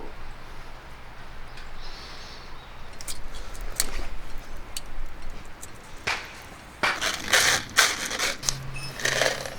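Irregular crackles and clicks, growing into a denser, louder run of crackling and rustling clatter from about six seconds in.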